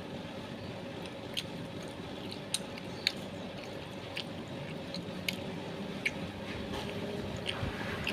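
Close-up chewing of grilled bakso meatballs, with scattered sharp wet mouth clicks, about seven of them, over a steady background hum.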